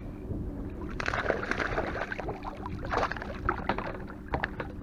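Water splashing and knocks against a plastic fishing kayak, in noisy bursts about a second in and again around three seconds in, with scattered sharp clicks.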